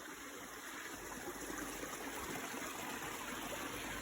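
Mountain stream water rushing steadily, growing a little louder over the first second or so.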